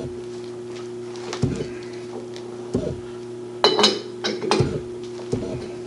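Several metallic clunks and clinks as a chuck key works the jaws of a four-jaw lathe chuck, nudging a flat-belt pulley to run true, over a steady hum.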